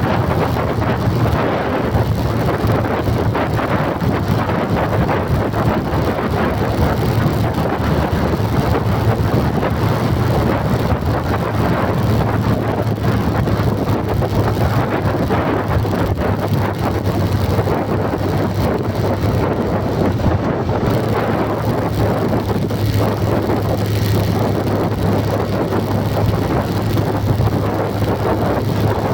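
Steady rumble of a moving vehicle with a constant low hum, and wind noise on the microphone.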